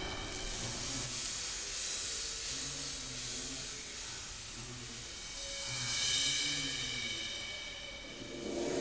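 Background film score: sustained tones over a cymbal-like hiss, swelling about six seconds in.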